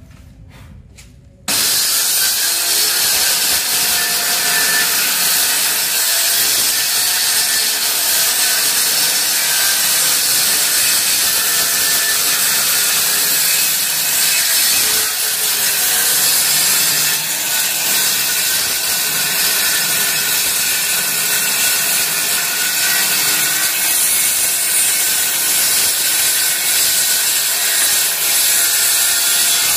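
A handheld electric circular saw cutting along a wooden window sash, a loud, steady sawing noise that starts abruptly about a second and a half in.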